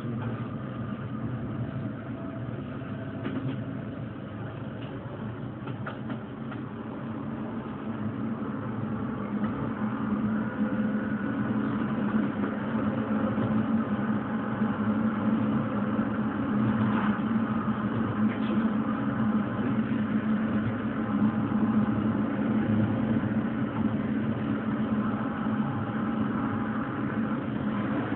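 Light-rail tram heard from its cab while running along the track: a steady hum with rolling noise that grows louder partway through.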